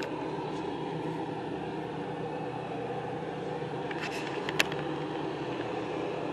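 Steady machine drone, with a few sharp clicks about four and a half seconds in.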